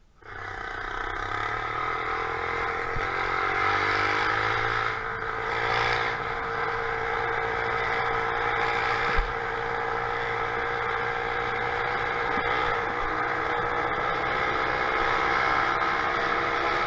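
Small engine of a motorized bicycle running under way, cutting in abruptly, its pitch climbing over the first few seconds as it speeds up, then holding steady. A single sharp knock about nine seconds in.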